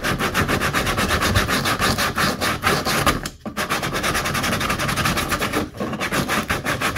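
Folded 100-grit sandpaper rubbed by hand along the cut plastic edge of a kayak hatch hole: quick, rapid back-and-forth rasping strokes, with two brief pauses about three and about six seconds in. It is smoothing off the ridge of melted plastic left by cutting the hole with a heated knife.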